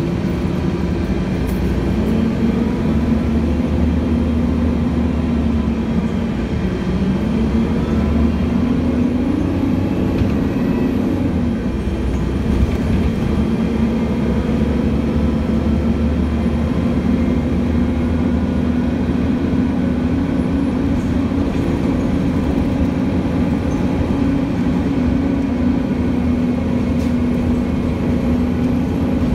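Cummins ISL straight-six diesel engine and Voith automatic transmission of a 2006 Gillig BRT transit bus, heard from on board while driving. The engine note dips and climbs a few times in the first half, then holds steady.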